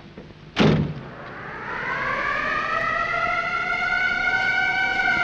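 A loud bang about half a second in, then a siren winding up: a wail that rises slowly over a few seconds, levels off and begins to fall near the end.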